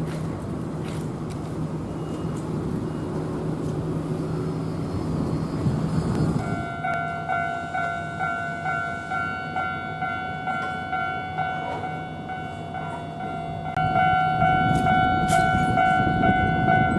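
Japanese level-crossing warning bell starts about six seconds in, a steady electronic clanging of about two strikes a second, after a low steady hum. Near the end a low rumble swells under the bell as a train approaches.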